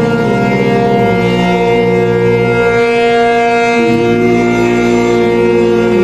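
Lebanese air-raid siren sounding continuously, several tones at once. Its pitch slides down within the first second and rises again about four seconds in.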